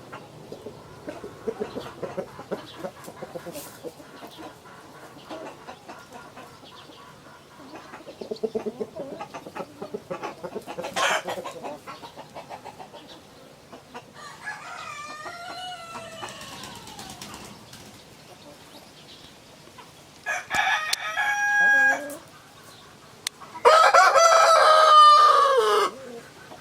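Chickens clucking steadily while roosters crow about three times: once midway, again a few seconds later, and loudest near the end.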